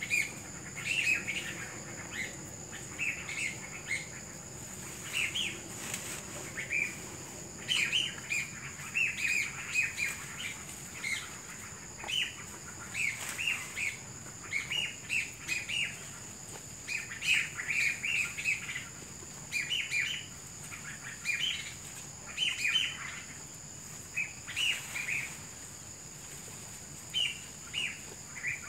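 Small birds chirping in short repeated bursts of high notes every second or two, over a steady thin high-pitched drone.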